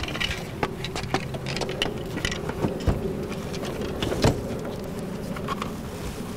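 Knocks, clunks and rattles of the folded KD Smart Chair power wheelchair's metal frame as it is lifted and set into a car's cargo area, the two loudest clunks about three and four seconds in, over a steady low hum.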